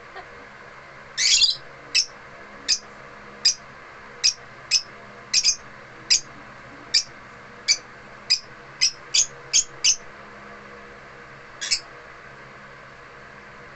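African lovebirds giving short, sharp, shrill chirps one at a time, at first about one a second, then coming quicker for a few seconds past the middle before tailing off.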